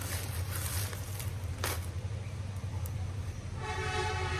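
Plastic packaging rustling and crinkling as a clothing parcel is handled, with a sharp click about one and a half seconds in, over a steady low hum. A short held tone comes in near the end.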